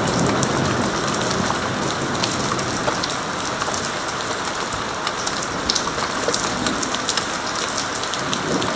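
Steady rain falling during a thunderstorm, with individual drops ticking sharply close by.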